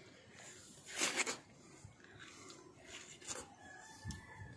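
A person eating a ripe, juicy mango: one short, loud slurp about a second in, then a few faint mouth smacks.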